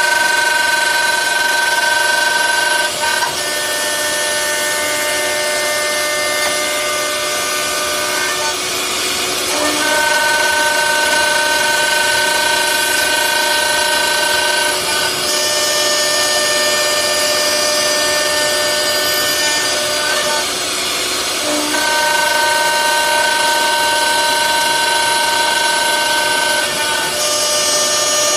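CNC door lock-mortise and hinge machine running: its spindle motors whine steadily as the cutters work the wood. The pitch shifts slightly about every six seconds.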